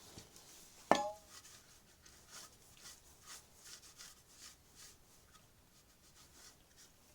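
A single sharp metallic clink with a brief ring about a second in, like a metal tool or part knocked against metal, followed by faint, irregular scraping and handling noises as work goes on under the car.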